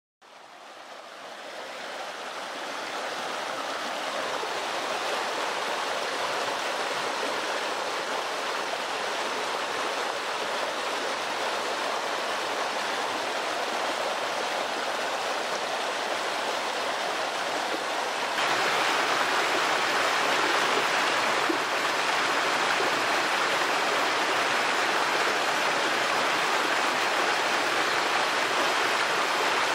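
Mountain stream running: a steady rush of water that fades in at the start and grows louder about eighteen seconds in.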